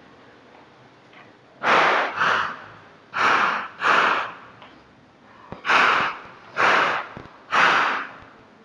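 HS-9 9mm semi-automatic pistol fired seven times: two quick pairs, then three evenly spaced shots. Each shot is a sharp report that dies away within a fraction of a second.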